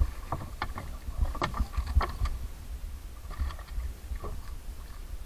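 Scattered knocks and clatter in the wooden hull of a small outrigger fishing boat as squid and a gaff hook are handled, over a steady low rumble of wind and water.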